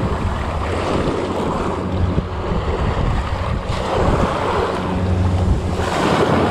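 Wind buffeting the microphone in a steady low rumble, with small waves washing onto the sandy shore.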